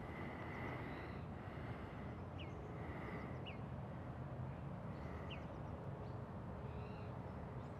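Faint outdoor ambience: a low, steady background rumble with a few short, high bird chirps scattered through it.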